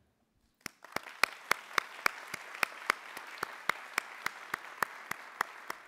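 Audience applauding, with one person's claps sharp and close to the microphone, about three a second, over the crowd's steady clapping. It starts about half a second in and thins out near the end.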